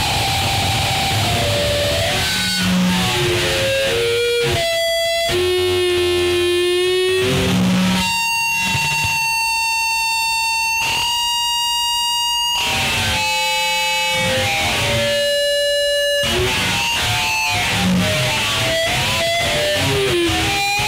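Harsh noise music: a dense wash of noise with shrill pitched tones that step and glide up and down, some held steady for a second or two. It cuts off suddenly at the end.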